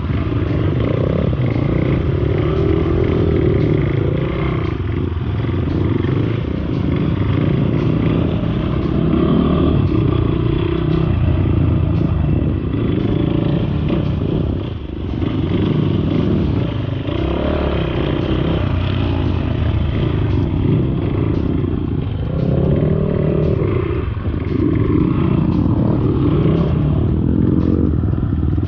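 Motorcycle engine running on a rough dirt trail, its pitch rising and falling with the throttle, with clattering knocks from the bike over the bumps.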